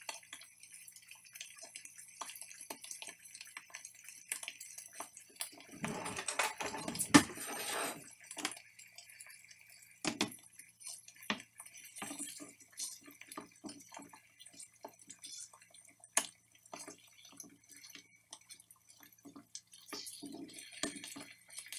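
Eggs frying in a non-stick frying pan: scattered crackles and pops of spitting fat, with a louder stretch of clatter and rustling about six to eight seconds in.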